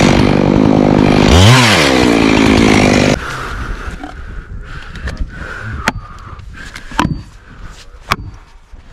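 Chainsaw running at full throttle in a felling cut, sawdust spraying, with a brief rise and fall in engine pitch about a second and a half in, then shut off suddenly just after three seconds. Then plastic felling wedges are struck into the back cut: three sharp knocks about a second apart near the end.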